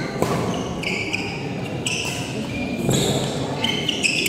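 Badminton rally: sharp racket hits on the shuttlecock and shoes squeaking several times on the court floor.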